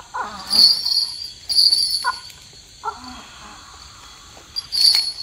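Insects chirping in three short high-pitched bursts, about half a second in, a second later, and near the end.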